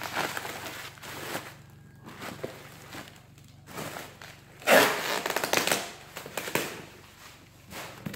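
Plastic bubble wrap rustling and crinkling as it is lifted, gathered up and bundled away by hand, in irregular bursts, the loudest about five seconds in.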